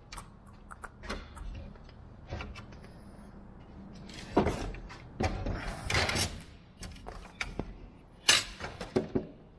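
Handling noise as thin metal tubes and wooden aircraft parts are moved about on a workbench: scattered clicks and knocks, a scraping rustle about halfway through, and a sharp knock near the end.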